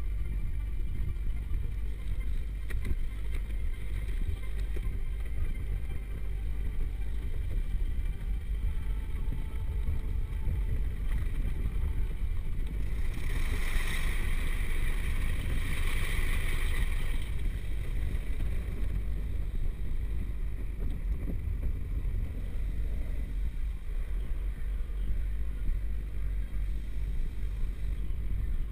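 Automatic car wash heard from inside the car's cabin: a steady low rumble, with water spraying hard against the windshield and body in a hissing rush for a few seconds about halfway through.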